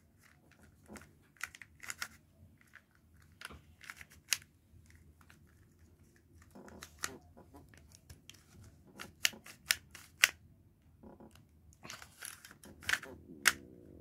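A plastic 3x3 Rubik's cube being twisted by hand: its layers click and clack irregularly as they turn, with louder clicks in the second half.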